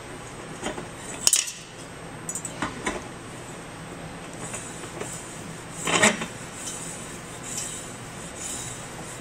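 Light metallic clinks and scrapes of a brass pump impeller being turned by hand onto the motor shaft, with a few sharp clicks and one louder clink about six seconds in.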